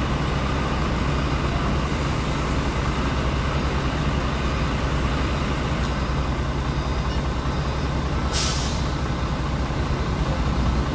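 Heavy diesel engine running steadily at idle with a deep, even rumble, and a short burst of hissing air a little past eight seconds in.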